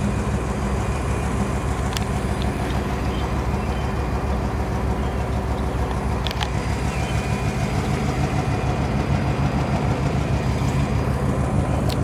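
1957 Ford Thunderbird's rebuilt original 312 Y-block V8 idling steadily, a low even rumble.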